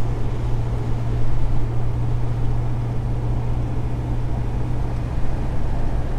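Toyota 80 series Landcruiser with a twin-turbo LS V8 cruising at a steady speed, heard from inside the cabin: a steady low engine drone with road noise.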